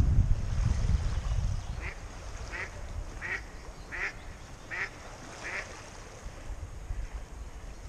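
A duck quacking, six short calls about 0.7 s apart, starting about two seconds in. Wind rumbles on the microphone in the first second or so.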